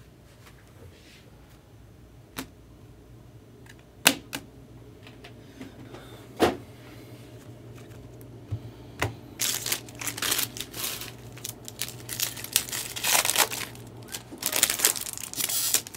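Trading cards and pack wrappers being handled: a few sharp clicks, then from about nine seconds in, repeated rustling and crinkling as cards are slid and the wrapper is worked.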